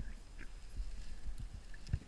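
Muffled underwater noise picked up through a diving camera's housing: irregular low knocks and rumbles with a few faint clicks.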